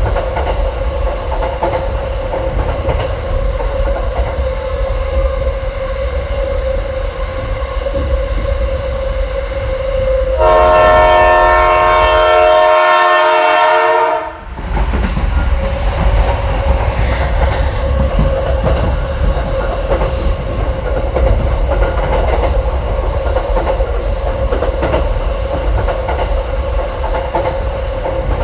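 Battery-powered toy train running on plastic track: a steady electric-motor whine with wheels clattering. About ten seconds in, a loud buzzy horn tone sounds for about four seconds. Toward its end the motor and wheel noise cuts out while the train lies derailed, then starts running again.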